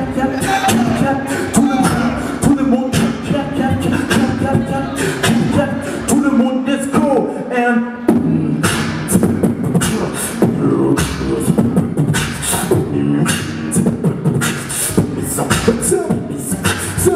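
Beatboxing into a handheld microphone: rapid vocal kick and snare hits over held hummed tones. About eight seconds in the beat breaks off abruptly and a new pattern starts.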